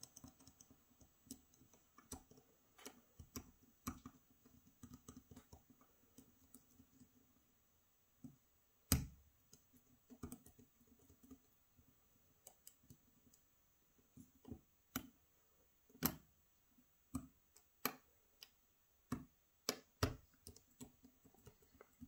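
Lock pick and tension wrench working the pins of a Gege AP3000 cylinder: faint, irregular small metallic clicks, with a louder click about nine seconds in and another around sixteen seconds.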